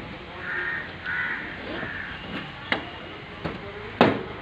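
Crows cawing three times in quick succession, then a click and, near the end, a louder sharp clunk as a car door is opened.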